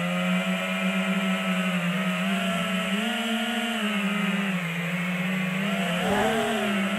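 FPV quadcopter's brushless motors whining as heard from its onboard camera, the pitch rising and falling with throttle changes.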